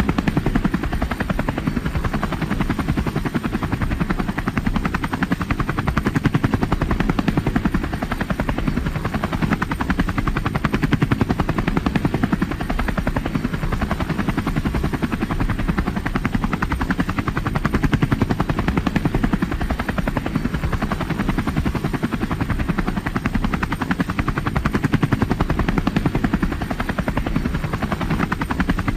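Helicopter in flight, its rotor blades beating in a fast, steady chop that holds evenly throughout.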